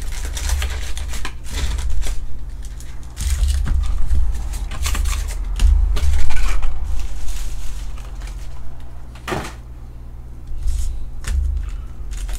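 Foil trading-card packs and a cardboard hobby box being handled: irregular crinkling, rustling and light taps of wrappers and cardboard, over a steady low hum.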